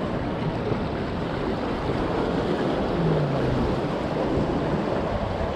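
Sea water washing at the shoreline, with wind rushing over the microphone as a steady noise.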